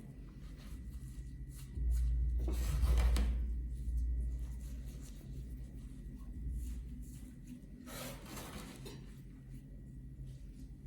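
Hands rubbing a spice mix into a raw pork roast, with two longer, louder rubbing strokes about two seconds in and eight seconds in, over a low steady hum.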